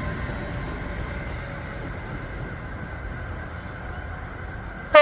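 Train running through the station with a steady rumble and a few steady whining tones. Near the end comes a sudden, loud train horn blast.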